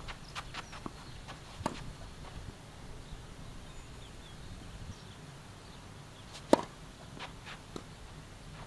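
Scattered sharp knocks of tennis balls being struck and bounced between points, the loudest a single crack about six and a half seconds in.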